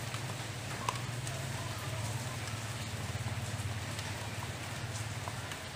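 Metal spatula stirring luffa chunks in a metal wok, with scattered light clicks and scrapes against the pan, over a faint sizzle of the cooking liquid and a steady low hum.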